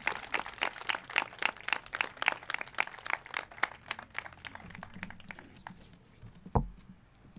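A small group clapping, the applause thinning out and stopping about five seconds in. A single low thump near the end.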